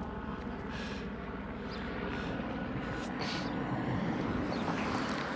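Police helicopter circling overhead, a steady drone of rotor and engine that grows a little louder toward the end.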